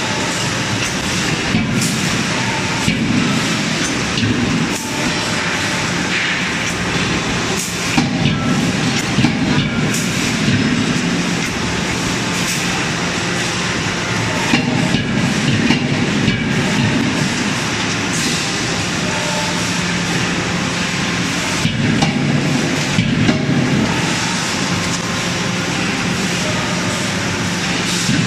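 Steady clattering machinery noise of an automatic forging line working around a CNC fully-hydraulic closed-die forging hammer, with scattered sharp knocks and a low hum that comes and goes.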